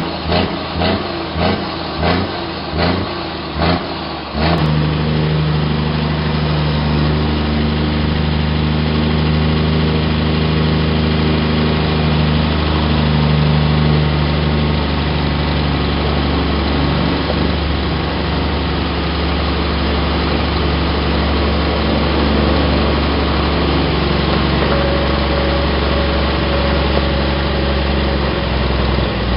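Scania R 420 truck's diesel engine idling steadily through an open, straight-through exhaust. For the first four seconds there is a run of regular pulses, about two a second, before the steady running settles in.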